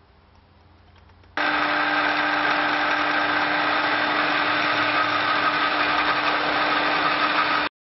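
Electric drill running steadily as a twist bit bores through the steel of a forged nail header, a constant motor hum with the grinding of the cut. It starts suddenly about a second and a half in and cuts off just before the end.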